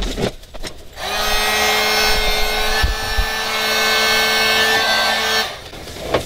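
Electric heat gun switched on about a second in, its fan motor running with a steady hum and rush of air as it shrinks tubing over a crimped battery-cable lug. It switches off shortly before the end. A few handling clicks come before it starts.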